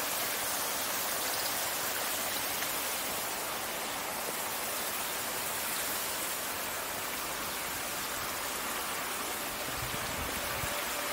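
Steady rushing splash of a garden fountain or water feature, with a few low bumps near the end.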